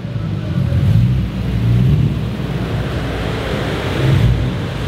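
Nissan Skyline R34 GT-R's twin-turbo straight-six running as the car creeps through an underground parking garage at low speed. The low engine note wavers a little.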